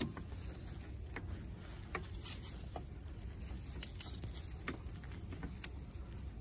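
Scattered light clicks and ticks of a wrench on the power steering pump's mounting bolt as it is tightened to torque, over a low steady rumble.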